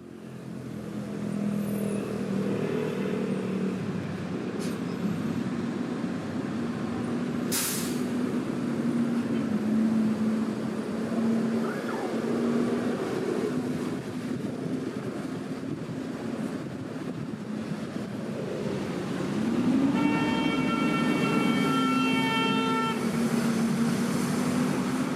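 Subway train running, a steady rumble with a motor whine that wavers in pitch and swoops up and down near the end, joined by a pitched horn-like tone for a few seconds late on.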